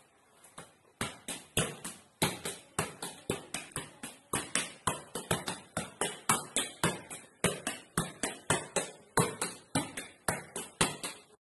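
A football being juggled: a quick, fairly even run of thuds as the ball is struck again and again by foot and knee, several a second, starting about a second in.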